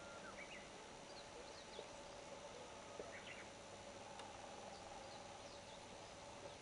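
Faint outdoor ambience: short, scattered bird chirps now and then over a steady faint hum and hiss.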